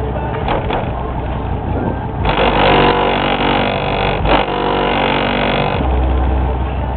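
Loud bass-heavy music played through a car-audio system with 15-inch subwoofers, heard from outside the van beside its closed side windows. The deep bass drops back for a few seconds in the middle while the higher parts come forward, then returns strongly near the end.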